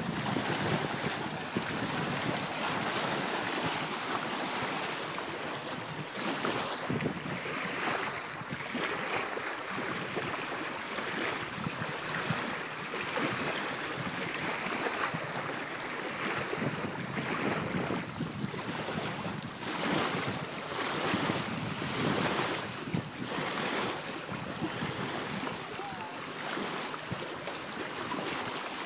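Wind buffeting the microphone over splashing, lapping water, in uneven gusts that rise and fall.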